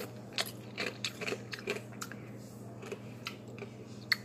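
Ice being bitten and chewed close to the microphone: about ten irregular crisp crunches, the sharpest near the end, over a steady low hum.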